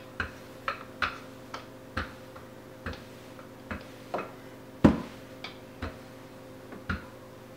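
Rolling pin being pushed back and forth over pie dough on a countertop: irregular clicks and light knocks, about one or two a second, with one louder knock about five seconds in.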